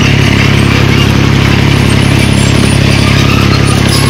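Tractor engine running loud and steady while driving a rotary tiller that churns the soil between vine rows, heard from the driver's seat.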